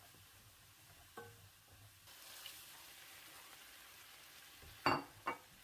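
Shrimp and vegetables sizzling in a hot wok; the sizzle grows louder about two seconds in as the boiled spaghetti goes into the pan. Two sharp clinks near the end.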